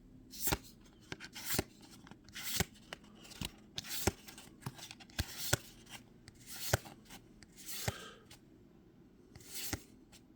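Trading cards from a freshly opened Magic: The Gathering booster pack being handled and slid off the stack one at a time: a run of short paper swishes and light clicks, roughly one a second.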